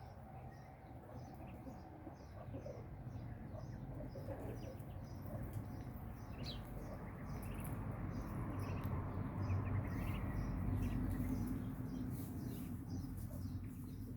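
Farmyard ambience: a faint, high chirp repeats steadily two or three times a second over a low rumbling background that swells midway.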